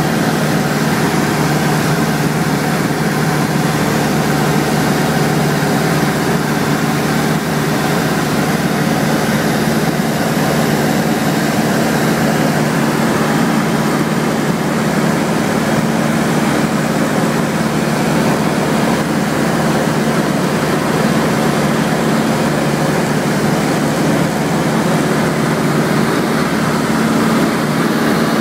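Cessna 172SP's four-cylinder Lycoming engine and propeller droning steadily in flight, heard inside the cabin, with a constant hiss over the low hum.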